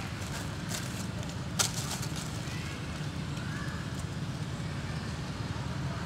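A low steady rumble with dry leaves crackling as a baby macaque moves about on them; one sharp crackle about a second and a half in is the loudest sound.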